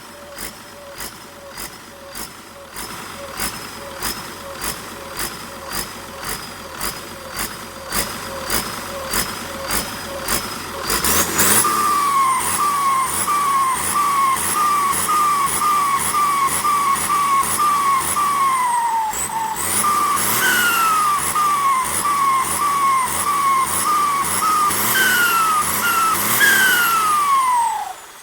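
Holset H1C turbocharger on a diesel engine: at first regular clicks about once a second over a faint whistle. About 11 seconds in it gets louder and the turbo chirps, a quick run of short falling whistles about twice a second, the compressor flutter known as 'pente na turbina'. Near the end there is one long falling whistle as it spools down.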